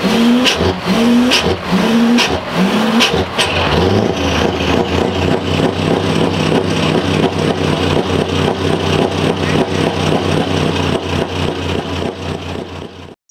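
Scania R500 V8 truck engine being blipped, a quick run of short revs about twice a second, then settling to a steady, lumpy idle. The sound fades out near the end.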